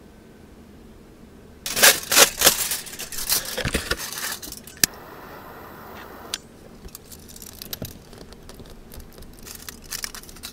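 Aluminium foil crinkling loudly as it is handled, then a sharp click and about a second and a half of steady hiss from a small butane torch, followed by lighter crinkling as the foil is folded.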